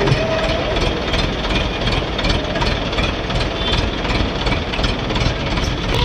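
ACE mobile crane's diesel engine running steadily close by, with a rapid even pulse to its sound.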